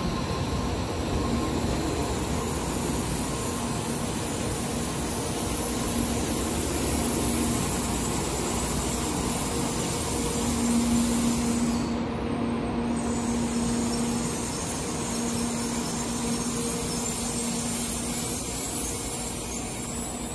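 Tokaido Shinkansen train rolling along the platform as it comes to a stop: a steady rush of wheels and air with a low hum.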